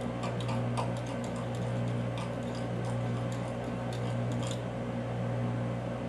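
Metal mixing tool clicking and scraping against a glass measuring cup while melted soft plastic is stirred, a string of faint irregular ticks over a steady low hum.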